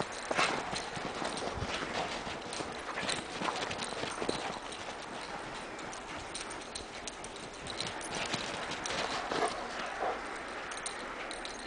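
Irregular crunching footsteps in snow over a steady hiss, from dogs running and playing.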